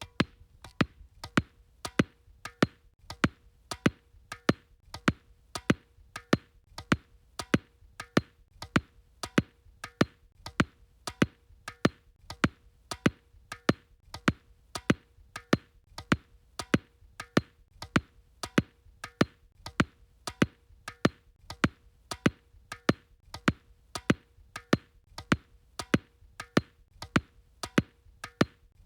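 Tennis ball dribbled on a hard floor: sharp bounces in a steady rhythm of about two a second, like a beat.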